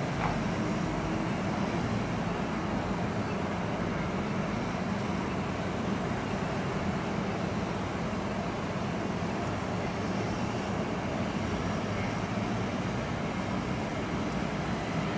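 Street traffic passing through a city intersection: a steady, low rumble of car and truck engines and tyres.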